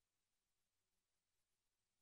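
Near silence: the sound track is all but mute.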